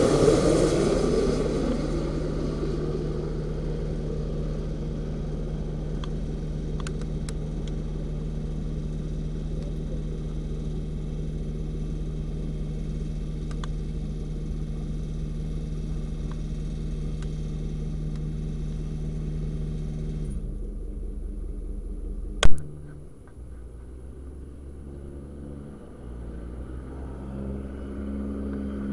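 Boeing 737 MAX 8 jet engines passing low overhead on landing approach, loud at first with a falling sweep in pitch, then fading into a steady hum and rumble that cuts off suddenly about twenty seconds in. One sharp, very loud thump follows a couple of seconds later. Near the end a second, distant jet on approach grows louder.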